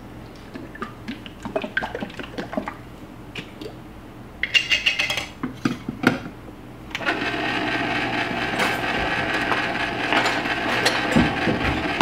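Cuisinart ice cream maker running with a steady motor hum, under light clicks from glass jars being handled. About seven seconds in, a louder steady liquid sound starts as the chilled custard base pours into the turning freezer bowl.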